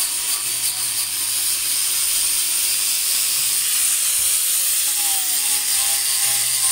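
Handheld angle grinder with a sanding disc running steadily against painted steel, sanding it down ahead of primer.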